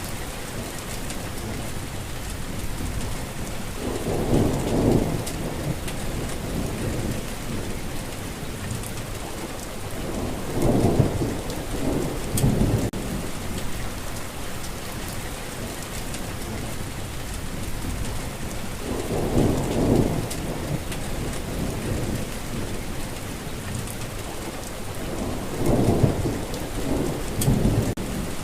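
Steady rainfall hissing, with low rumbles of thunder swelling and fading four times.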